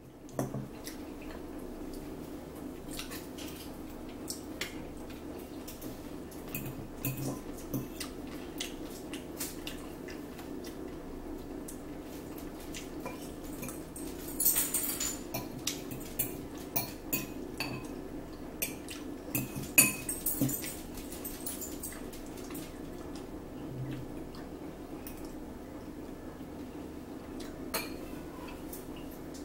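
Metal forks clinking and scraping against salad bowls and plates in short, scattered clicks while two people eat, over a steady low hum. The clicks come in small flurries about halfway through and again a few seconds later.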